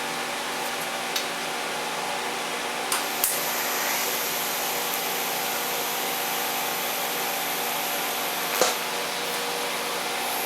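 Steady whir of a running shop machine or power tool, holding an even pitch, with a few light clicks or knocks along the way.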